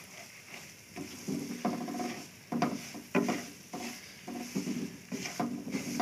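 Silicone spatula stirring and scraping semolina roasting in hot oil in a non-stick kadhai, in irregular strokes starting about a second in, over a faint sizzle.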